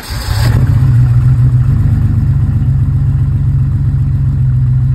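BMW M30 3.5-litre straight-six engine catching on the starter in the first half-second, then running steadily, after about five years without being started.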